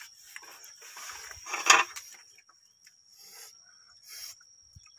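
Eating sounds at a cooking pot: soft scrapes and rustles, with one louder burst about a second and a half in.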